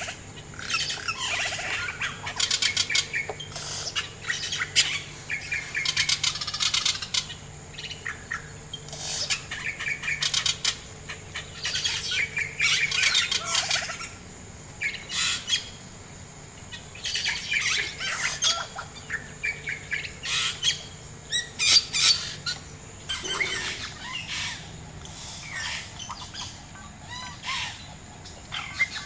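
Rainforest birds calling and chirping in repeated short bouts over a steady high-pitched drone, likely insects.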